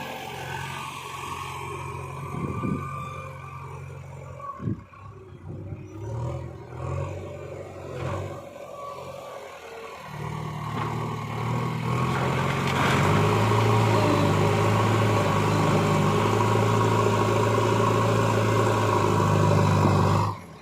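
Heavy diesel engine running, with a few knocks in the first half. About ten seconds in it revs up and holds at high revs, then cuts off abruptly just before the end.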